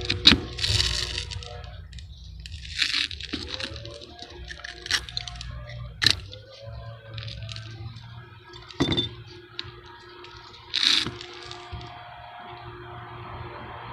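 Metal putty knife scraping and clinking while working thick roof patch cement: a few short, gritty scrapes and several sharp clicks, over a steady low hum.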